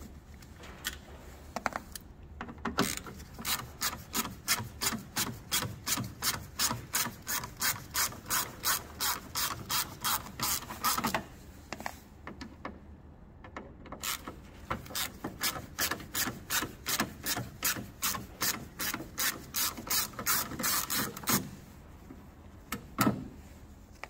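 Ratchet screwdriver with a T25 Torx bit clicking as it undoes the screws holding a car door catch. The clicks come in two long runs, about three a second, with a pause between and a single knock near the end.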